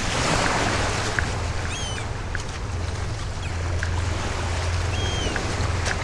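Small Lake Michigan waves lapping and washing over the sand around wading bare feet, with a stronger wash about the first second. A steady low rumble runs underneath, and a few short, high chirps come through.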